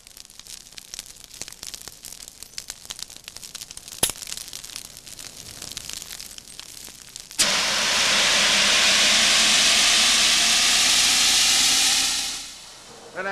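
Paper fire crackling in a wastebasket, with one sharp click about four seconds in. About seven seconds in, a 5-pound ABC dry-powder fire extinguisher starts discharging with a sudden loud, steady hiss that lasts about five seconds and then fades out as the fire is put out.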